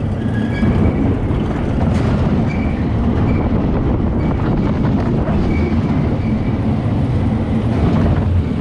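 Reverchon spinning roller coaster car running along its steel track while spinning: a steady rumble and rattle of the wheels on the rails, with short faint high squeals now and then.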